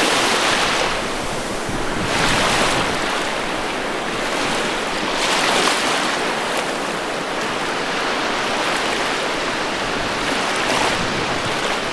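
Waves washing in over a shallow sand flat in the wind, swelling with a surge of surf every few seconds.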